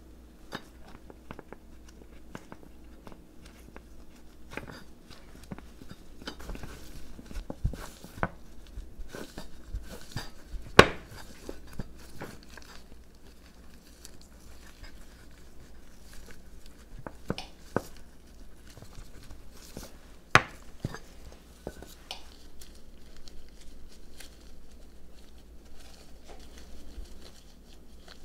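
Kitchen utensils and dishes being handled during baking prep: scattered clinks, taps and scrapes. Two sharp knocks stand out, about 11 and 20 seconds in.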